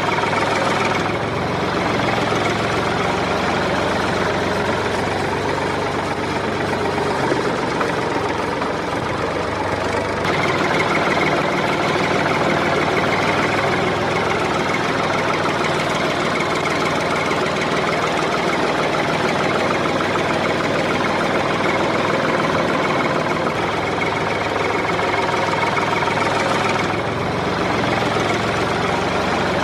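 Diesel engines of a JCB 3DX backhoe loader and an HMT 5022 tractor running steadily while the backhoe loads soil into the tractor's trolley. The engine sound eases a little about a second in and again near the end, and picks up about ten seconds in.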